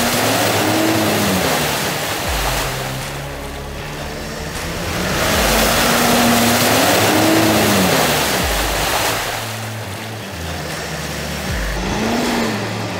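Mitsubishi Triton's turbo-diesel engine revving up and dropping back in surges as its tyres spin and throw mud and water through a muddy bog. Two long surges of revs and splashing, a quieter lull between them, and a third rise starting near the end.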